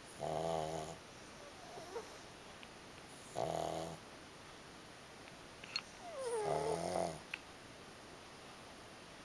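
A sleeping pug snoring: three snores about three seconds apart, the third starting with a whistling squeak that falls in pitch. A couple of small clicks come between the snores.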